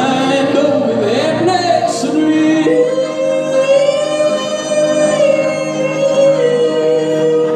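A man singing live with electric guitar accompaniment, his melody moving about and then settling into one long held note for about three seconds that dips slightly at its end.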